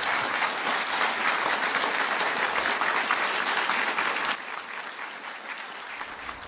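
Audience applause, many people clapping together. It drops off sharply about four seconds in and carries on more faintly.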